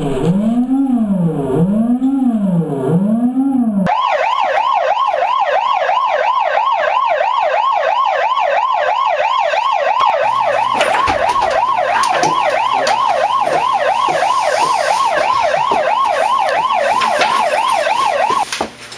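Handheld megaphone's built-in siren: a slow, low wail for the first few seconds, then a fast, higher yelp that cuts off suddenly near the end. From about halfway through, rustling and knocks sound under it.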